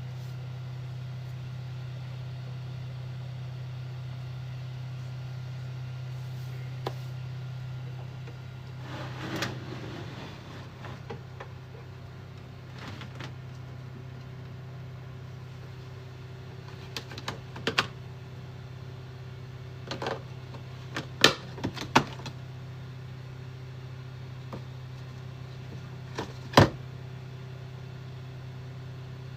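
Small tools and parts being handled while working on an Ender 3 3D printer: scattered sharp clicks and taps, a few of them loud, over a steady low hum.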